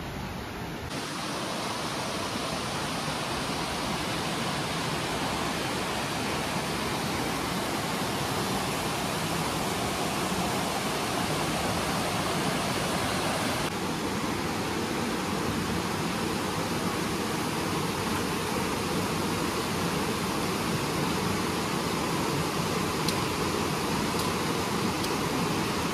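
A rocky mountain stream rushing over boulders and small cascades: a steady hiss of running water that changes abruptly about halfway through.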